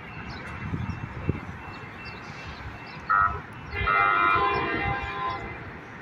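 Light-rail trolley horn: a short toot about three seconds in, then a longer blast of several tones together that fades away over about a second and a half.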